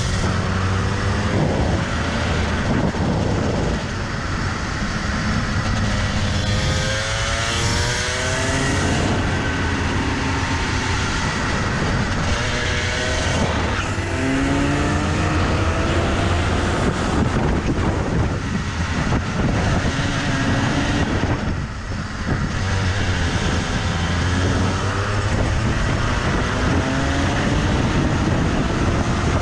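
Rotax two-stroke kart engine at racing speed, its pitch rising repeatedly under acceleration and dropping off into the corners, lap after lap.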